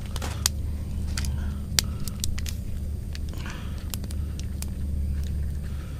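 Wood fire burning hot in a small firebox stove: sharp crackles and pops every half second to second over a steady low rumble.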